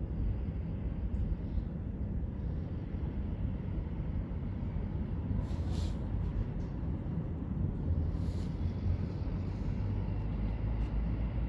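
Steady low rumble of a slowly passing freight train, with two brief high hisses about six and eight seconds in.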